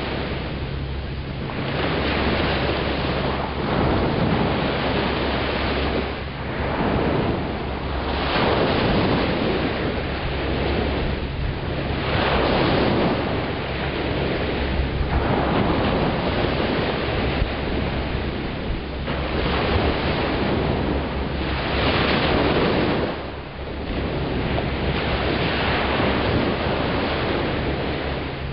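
Small waves breaking on a sandy beach and washing up the shore, the surf swelling and easing every few seconds.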